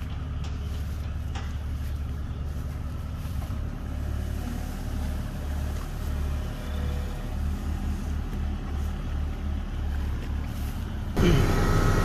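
Kubota mini excavator's diesel engine running steadily as the machine travels on its tracks. A little before the end the engine sound jumps suddenly louder.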